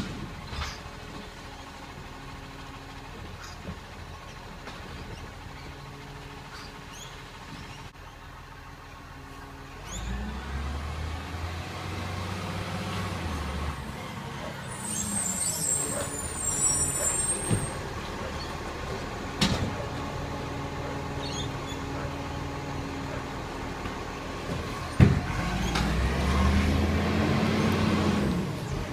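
Diesel engine of a side-loading recycling garbage truck running at idle, then revving up and back down twice as it works its bin-lifting arm. Short air-brake hisses and a couple of sharp bangs from the bins mark each stop.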